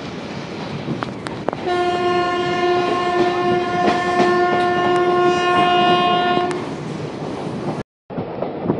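Passenger train running through a station with a steady rumble and occasional clicks from the wheels over rail joints. A couple of seconds in, a train horn sounds one long steady blast of about five seconds. Near the end the sound cuts off abruptly.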